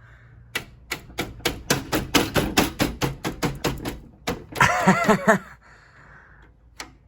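A rapid, even series of sharp clicks, about four or five a second, lasting about three and a half seconds while a graphics card is refitted in a workstation. A short hummed voice follows.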